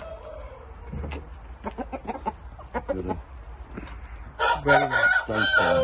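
Rooster clucking in short calls, then a long crow, the loudest sound here, starting about four and a half seconds in.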